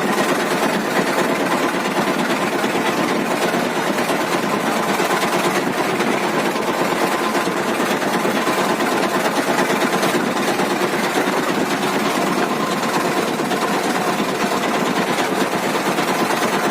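Small fishing boat's engine running steadily at a constant speed, with a continuous wash of wind and water noise over it.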